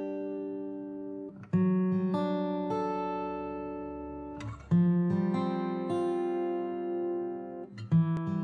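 Intro music on a plucked acoustic guitar: chords and notes struck every second or so, each ringing out and fading before the next.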